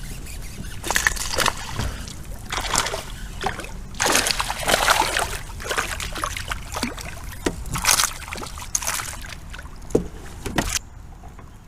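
Water splashing and sloshing in irregular bursts around a kayak as a hooked bass is fought in. The splashing stops abruptly shortly before the end.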